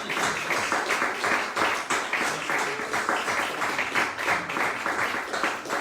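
A congregation clapping and applauding, a dense, steady patter of many hands.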